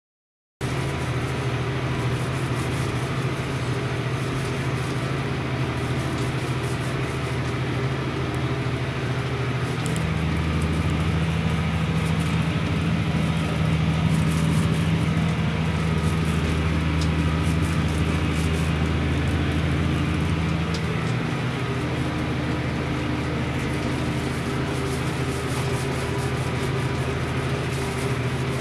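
John Deere 6810 tractor's diesel engine running steadily under load while it drives a disc mower through grass, heard from inside the cab. The engine note changes about ten seconds in and returns to its first pitch about twenty seconds in.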